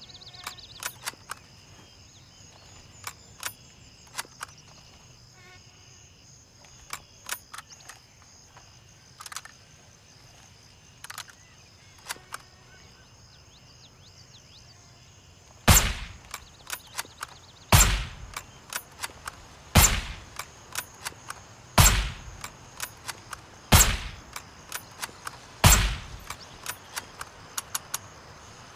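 Six suppressed shots from a Mosin-Nagant 7.62×54R bolt-action rifle, evenly spaced about two seconds apart and starting about halfway through, each followed by a few lighter clicks. Before the shots, scattered sharp clicks.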